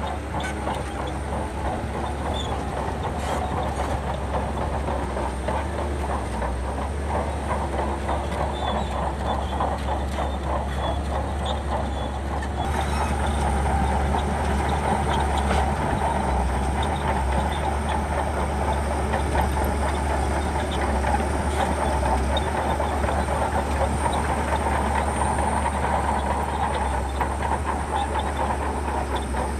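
Big Shantui crawler bulldozer working: its diesel engine running steadily under a fast, continuous clatter of steel tracks. It grows a little louder about 13 seconds in.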